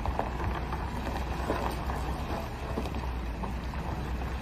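Heavy truck's diesel engine rumbling low and steady as a bulk cement tanker semi-truck moves slowly over a gravel road, with scattered crackles of tyres on loose stones and wind noise on the microphone.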